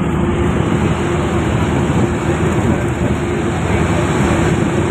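Large road vehicle on the move: a steady drone of engine and road noise heard from inside the cab, with a constant low hum under it.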